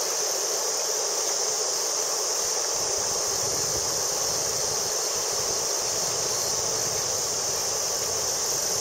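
Steady rush of river water running over shallow gravel, under an unbroken high-pitched chorus of insects.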